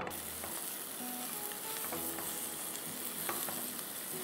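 Chopped onions sizzling in hot oil in a nonstick wok, the sizzle setting in suddenly at the start, with a spatula stirring them through the oil.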